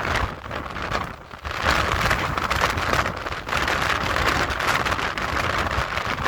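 Strong wind buffeting the microphone in gusts, easing briefly about a second in before picking up again.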